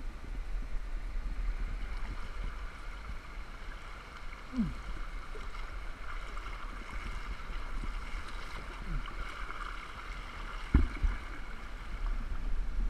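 Swift river water rushing steadily past a rescue craft on a highline, with wind rumbling on the microphone. Two short low falling sounds and one sharp thump near the end.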